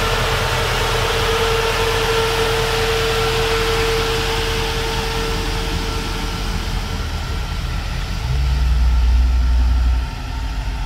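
1957 Chevrolet Bel Air's V8 idling steadily, with a steady whine from the engine bay that fades about halfway through. A louder low rumble swells for about two seconds near the end.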